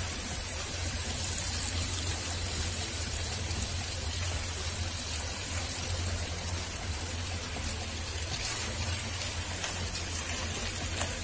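Oil and spice paste sizzling steadily in a frying pan as pieces of fried hilsa are laid in, over a low steady hum.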